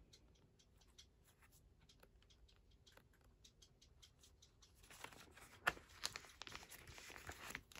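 Clear plastic binder pocket pages crinkling and rustling as sleeved photocards are handled and slid into the pockets. It is faint light ticking at first, growing into louder rustling about five seconds in, with one sharp click.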